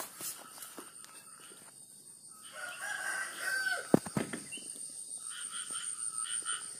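A rooster crowing, one long call about two and a half seconds in, with a sharp knock right after it and further higher calls near the end.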